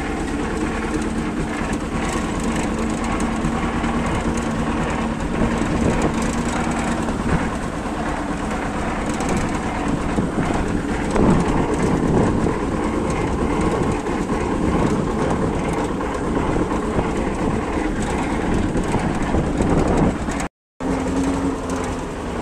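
Red T-40 tractor's diesel engine running steadily as it tows a hitched seed drill and harrow, with the drill's steel frame and harrow teeth rattling and clattering over the field. The sound cuts out for a moment near the end.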